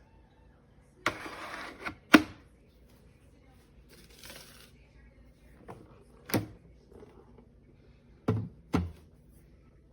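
A short rustle, then a sharp click, followed by several more clicks and knocks spaced one to two seconds apart, in a small room.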